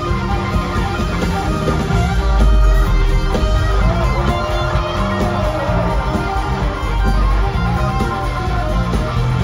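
Live rock band playing an instrumental passage, heard from the crowd: electric guitars over bass and drums, with a lead line of gliding, held notes in the middle.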